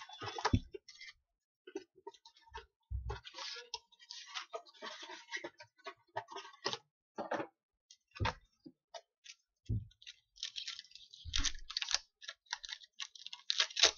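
Hands handling trading card packs and cards: irregular crinkling and clicking of wrappers and card stock, with a few dull knocks on the table.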